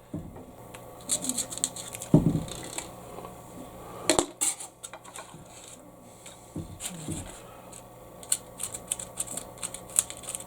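Small metal pieces and hand tools being handled on a workbench: scattered light clicks and taps, a sharper knock about four seconds in, and a quick run of light ticks near the end.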